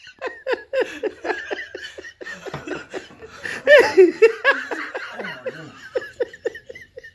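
Someone laughing: a long run of short, repeated laughs with catches of breath between them.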